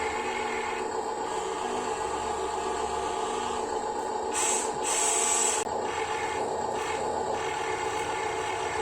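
Small electric gear motors of Huina RC construction models whining steadily as they work, with two short scraping rushes a little past the middle.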